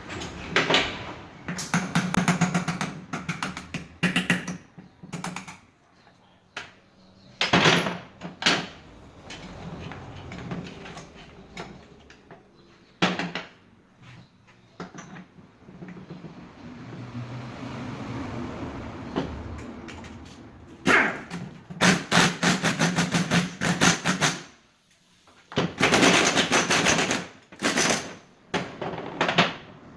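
Ford Fiesta manual gearbox being dismantled with tools: several bursts of rapid metallic rattling, with single sharp metal knocks in between.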